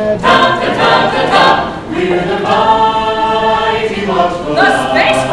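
A cappella choir singing in harmony, with long held chords.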